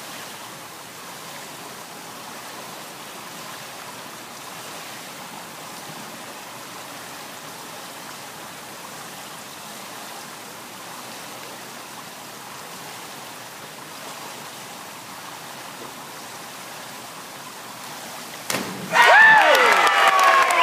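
Steady hiss of a pool hall's background noise while a diver waits on the platform. Near the end there is a sudden splash, then a crowd cheering loudly with shouts and whistles.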